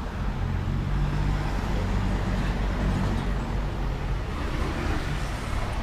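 Steady background vehicle noise: a low engine hum with a traffic-like rumble, changing little.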